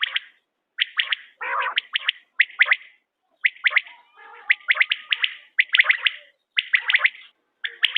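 Quail calling: short bursts of three or four quick, sharp whistled notes, repeated about once a second with brief silent gaps between them. A few rougher, buzzier calls come in among them.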